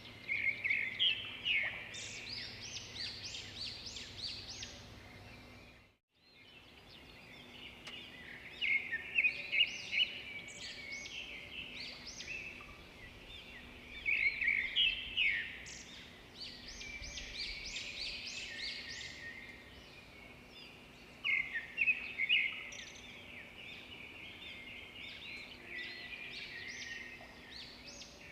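Songbirds chirping and chattering in repeated bursts of quick notes over a faint, steady background of gurgling water. The sound drops out to silence briefly about six seconds in.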